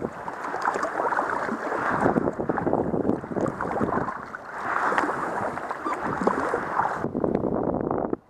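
Water splashing and sloshing from kayak paddle strokes, mixed with wind rumbling on the camera microphone; the noise swells and fades roughly once a second.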